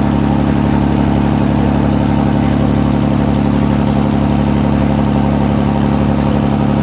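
Ferry's diesel engine running steadily, a constant loud drone.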